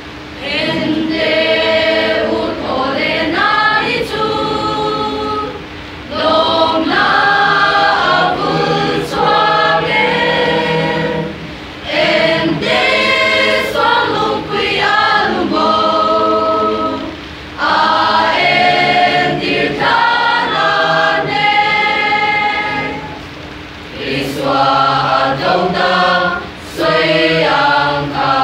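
Mixed choir of women and men singing a hymn together, in long phrases of about five or six seconds, each followed by a short breath pause.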